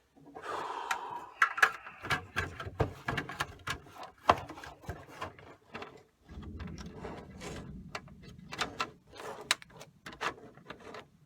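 Hands working a pulled-out car radio and its wiring in an RV dashboard: irregular sharp clicks and knocks of plastic trim and connectors, with rustling and rubbing of cords, a lower rubbing stretch about six seconds in.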